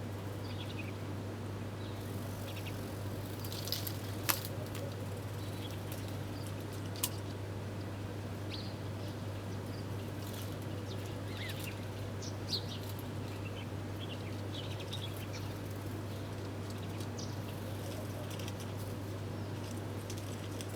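Small wild birds chirping, with many short, scattered chirps over a steady low hum. A few sharp clicks stand out, the loudest about four and seven seconds in.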